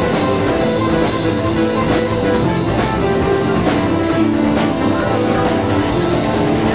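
Live band playing a rock song with guitar and drums, an instrumental stretch without singing, at a steady loud level.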